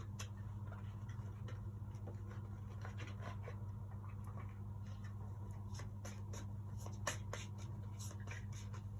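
A deck of oracle cards being shuffled and handled: a run of small papery clicks and flicks, coming thicker in the second half, over a steady low electrical hum.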